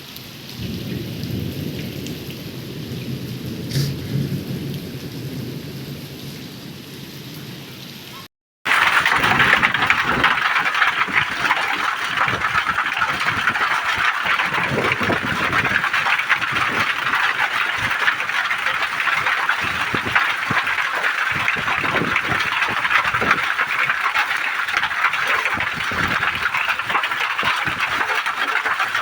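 Thunder rumbling low for the first several seconds, then, after a brief break, heavy rain pouring steadily and loudly.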